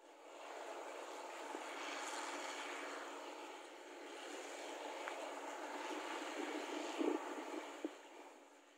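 New Holland combine harvester running as it cuts and threshes rice: a steady engine and machinery drone that swells and fades, with a few short knocks in the second half.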